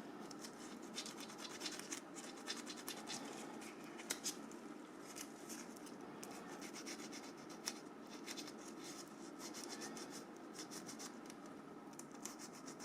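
Hands working on a mobile phone's small parts: faint, close scratching and rubbing, dotted with many small clicks.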